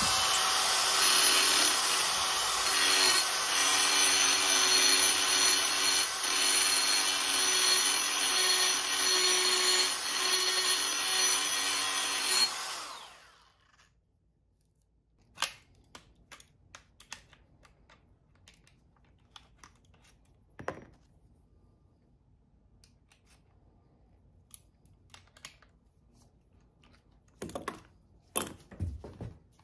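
DeWalt 20-volt brushless cordless die grinder running at high speed with a steady whine as it grinds on a metal part, then winding down about 13 seconds in. After that come small sharp clicks and taps as the tool is handled.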